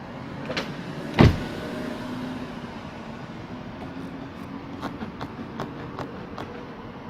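BMW F30 power window running, with one loud thump about a second in and a run of light clicks near the end.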